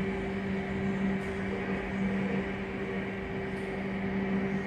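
Steady machinery hum with a low tone and a higher tone an octave above it, over a constant airy hiss.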